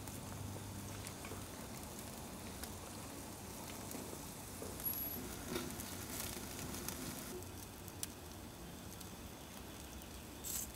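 Faint sizzling and crackling of a whole rainbow trout cooking in a wire grill basket over the grill, with a few small ticks.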